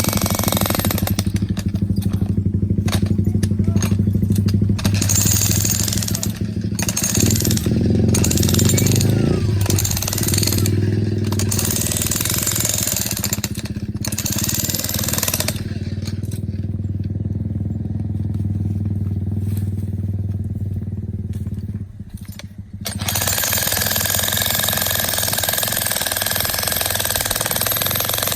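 Jackhammer running steadily, pounding and breaking up rock, with a short lull about three-quarters of the way through before it picks up again.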